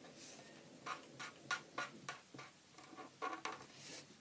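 Felt-tip pen colouring in on paper: faint, irregular short scratchy strokes, some in quick runs.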